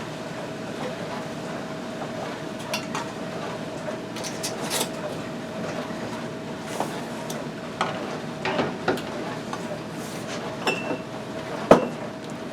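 Salsa being stirred and scooped in a stock pot and poured into glass canning jars: scattered scrapes and clinks of a utensil against the pot and jars, over a steady hum.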